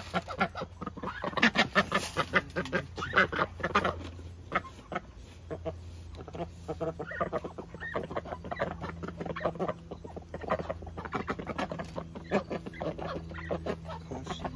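Domestic ducks and chickens calling in a pen: a run of short, repeated quacks and clucks, busiest a couple of seconds in, over a steady low hum.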